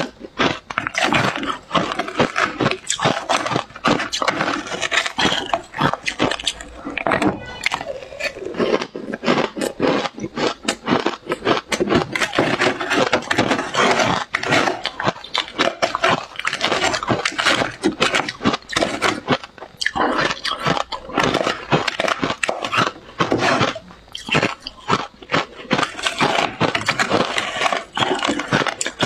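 Metal spoon scraping and mashing shaved ice mixed with matcha powder in a glass bowl: a dense, continuous run of crunching, crackling scrapes with a few short lulls.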